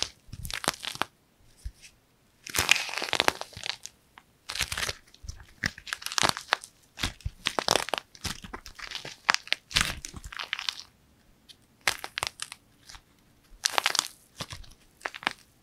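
Dried plaster clay cracking and crumbling as hands squeeze and tear it apart: irregular bursts of crisp crackling and crunching, with short quiet pauses between handfuls.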